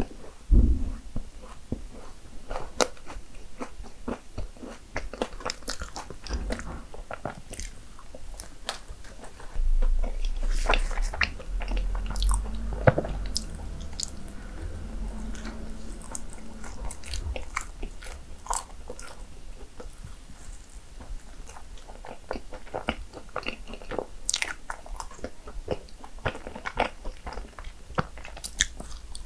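Close-miked eating of cinnamon rolls: bites and chewing with crisp crunches and small clicks. Several seconds of louder low thuds come near the middle.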